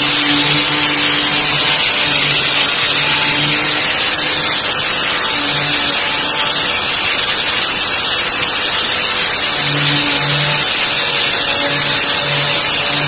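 Angle grinder with a sanding disc running against wooden wall panels, stripping the old finish off the boards. A loud, steady high hiss from the disc on the wood, with a lower motor hum that comes and goes.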